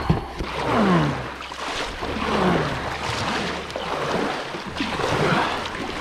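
Kayak paddle strokes in a fast, shallow river riffle: rushing water throughout, swelling with each stroke about every second and a half.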